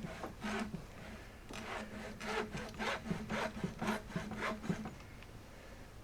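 Old hacksaw cutting through rubber radiator hose in back-and-forth strokes, about two a second, stopping about five seconds in. A low steady hum runs underneath.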